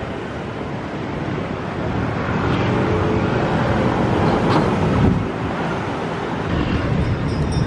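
Steady road traffic noise, with one vehicle passing that swells louder around the middle and then fades.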